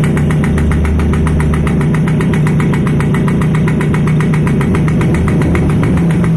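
TVS XL Super Heavy Duty moped engine idling steadily, its exhaust pulses coming evenly at about ten a second, while the carburettor's idle is being set.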